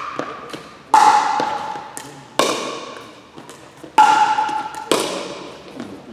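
Pickleball paddles striking the plastic ball in a rally: four sharp, hollow pocks about a second or so apart, each ringing on in the gym's echo.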